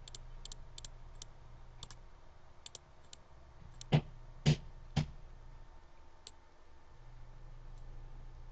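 Computer mouse button clicking over and over, many clicks in quick press-and-release pairs, while cells of an on-screen grid are deselected. About halfway through come three much louder knocks, half a second apart.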